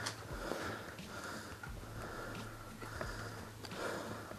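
A player's heavy breathing close to a head-mounted camera, in rough swells about once a second, with a sharp click right at the start.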